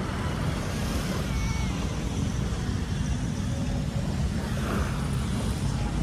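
Steady low rumble and hiss of wind on the microphone, with gentle surf washing onto the beach.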